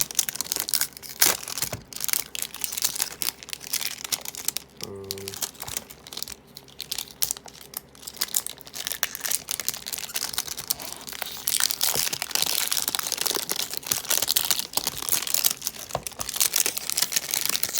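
Plastic shrink wrap being peeled and torn off a boxed Rubik's-type cube and crumpled in the hands: a dense, continuous crinkling and crackling.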